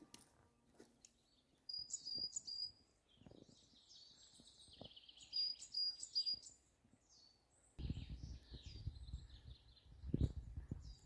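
Small songbirds calling, short high chirps coming in quick runs of about three notes, with a more tangled stretch of twittering between them. From about two-thirds of the way in, a low rumbling noise sets in under the birds.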